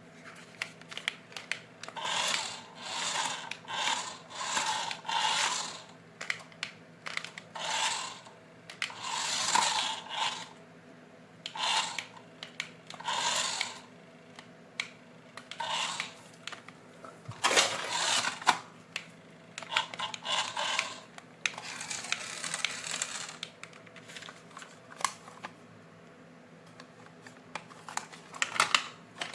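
Irregular rustling and clicking of toy packaging being handled, in short bursts of a second or less with sharp clicks between them.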